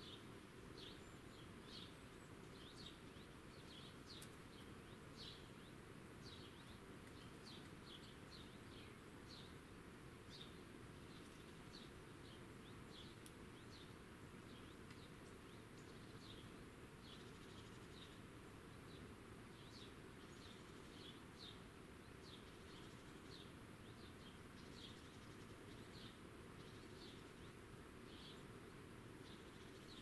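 Faint, high, short chirping notes, two or three a second, keep going over a low steady background hum.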